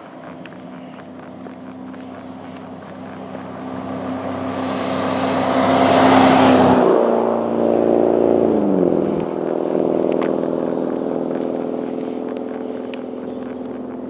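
A truck on the highway approaching and passing close by at speed: engine and tyre noise build to a loud rush about six seconds in, then the engine note drops in pitch as it goes past and slowly fades away.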